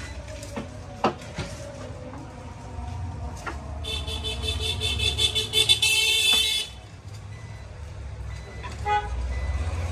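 Low street-traffic rumble with a loud, shrill vehicle horn sounding for nearly three seconds from about four seconds in, and a couple of sharp clicks about a second in.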